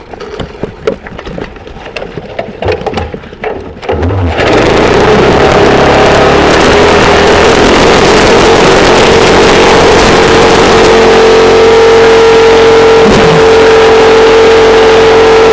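Alkon engine, a small pump-type engine used to power a boat, with a few knocks and clicks before it starts about four seconds in. It then runs loud and steady at high speed to the end, with a held engine tone.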